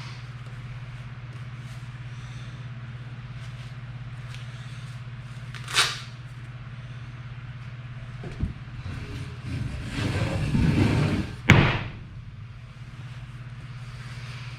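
A steady low hum, with a single sharp knock about six seconds in, then a rumbling, scuffling stretch that ends in a loud bang.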